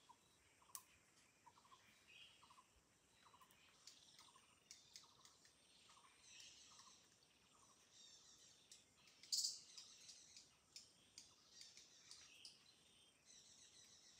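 Faint birds calling in forest. A short, slightly falling note repeats about twice a second for the first half, with scattered higher chirps throughout. A brief sharp high chirp about nine seconds in is the loudest sound.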